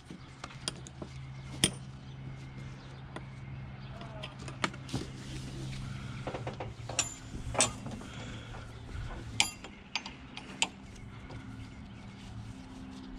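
Metal tie-down strap hooks clinking and knocking against ATV handlebars and frames as the straps are hooked up and worked, a few of the clinks ringing brightly, over a steady low hum.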